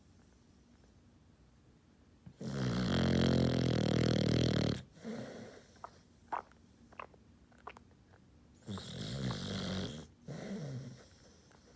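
A six-month-old puppy snoring in its sleep: one long, loud snore about two seconds in, a few short clicks, then two shorter snores near the end.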